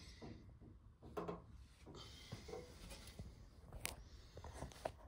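Faint rustling and a few light clicks from handling, with one sharper click almost four seconds in.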